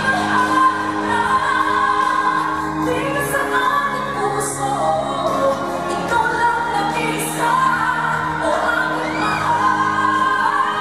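Live pop power ballad: a woman belting a Tagalog song into a microphone over band accompaniment.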